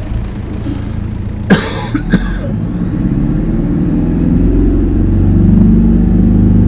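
Mercedes E 220 CDI four-cylinder diesel engine running with a deep drone (Brummen) that grows louder from about three seconds in. It is the vibration the mechanics trace to a torn rear transmission mount. Two short sharp sounds come about a second and a half and two seconds in.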